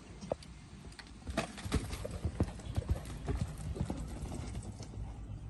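Horse's hoofbeats on arena sand as it lopes, a quick run of dull thuds and clicks that starts about a second in and thins out near the end.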